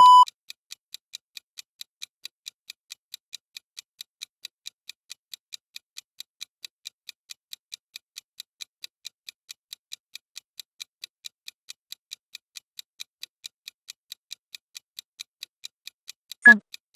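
Interval timer app ticking steadily, about four ticks a second, counting down a workout interval. A beep ends right at the start, and a recorded voice begins the countdown to the end of the interval near the end.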